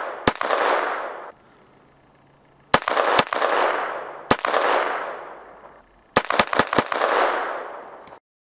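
Walther P22 .22 LR semi-automatic pistol being fired. There is a single shot, then three more over a second and a half, then four quick shots near the end. Each shot trails off in a long echo, and the sound cuts off abruptly just after eight seconds in.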